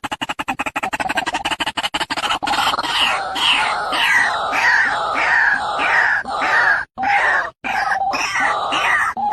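White-breasted waterhen calling: a fast stuttering run of pulses for about two seconds, then a string of harsh notes, about two a second, each falling in pitch.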